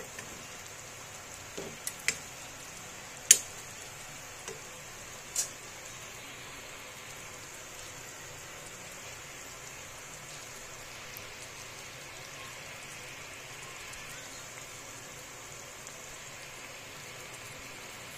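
A soft, steady hiss of the milky fish curry simmering in a metal pan. A few sharp clicks of a metal spatula against the pan come in the first few seconds, the loudest about three seconds in.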